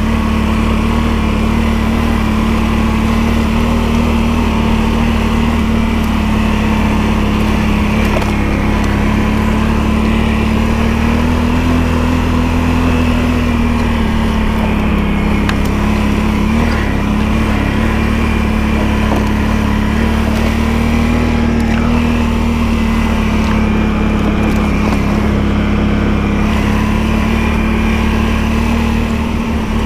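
ATV engine running steadily while riding along a trail, its pitch rising a little about twelve seconds in and settling again.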